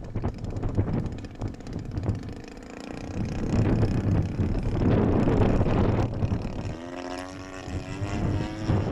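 Wind buffeting the microphone, with the DL-50 50cc two-stroke petrol engine of a large radio-controlled aerobatic plane running underneath; near the end the engine note comes through clearly and rises in pitch as the throttle is opened.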